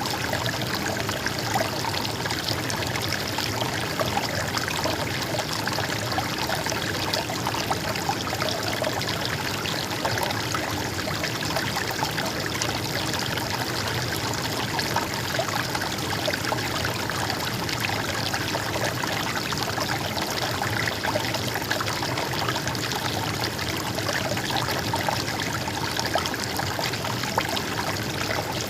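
Stream water flowing with a steady, babbling trickle.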